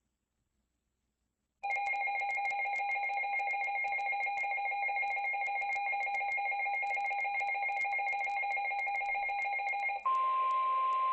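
Emergency Alert System attention signal: a steady, harsh two-tone alarm starts about a second and a half in and holds for about eight seconds. Near the end it switches to a single steady tone, the weather-radio warning alarm tone. Together they signal that a severe thunderstorm warning is about to be read.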